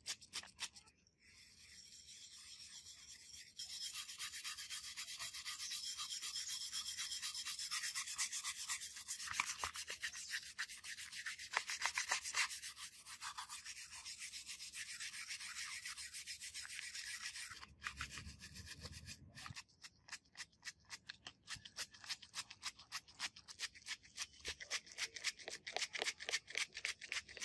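Stiff plastic-bristled brush scrubbing a rusty metal model car body coated in white powder, a scratchy back-and-forth rubbing. Near the end it settles into quick, even strokes.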